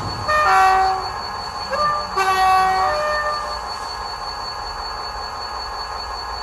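Class 57 diesel locomotive two-tone horn, sampled sound played from a model locomotive's DCC sound decoder and speaker: two blasts, each stepping from one tone to the other, with a short blip between them. Under the horn, the locomotive's idling engine sound runs steadily.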